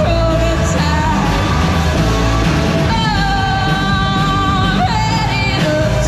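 Live rock band playing: a woman sings over electric guitars, drums and keyboard, holding a long, bending note about halfway through. The sound is loud, as picked up by a GoPro's built-in microphone.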